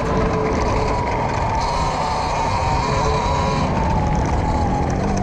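E-Ride Pro SS electric dirt bike's motor whining under way, a steady high tone that sags a little near the end, over a low rumble of wind and tyres on dirt.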